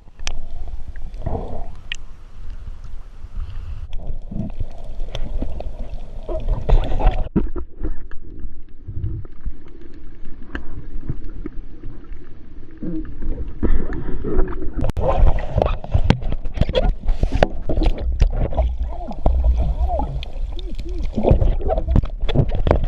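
Sea water churning and gurgling around the camera, with a heavy low rumble and scattered knocks.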